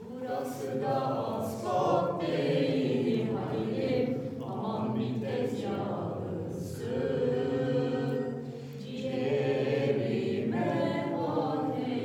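A group of people singing a song together in chorus inside a stone cistern, in phrases of a couple of seconds with brief pauses between them.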